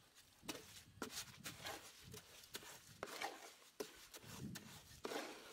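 Shovel blade scraping and scooping through concrete mix in a metal wheelbarrow tray, in a string of short, faint strokes about once or twice a second.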